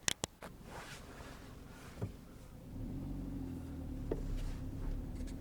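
A couple of short clicks, then a car engine's steady low hum that comes in almost three seconds in and keeps running.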